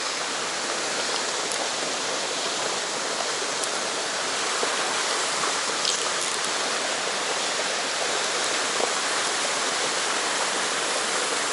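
Steady rush of fast river water, with water gushing from an outlet pipe in the stone embankment into the stream.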